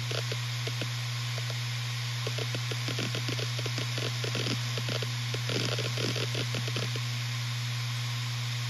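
Western Digital RE 4 TB (WD4000FYYZ) 7200 RPM five-platter hard drive spinning with a steady low hum, its heads seeking in irregular clusters of clicks.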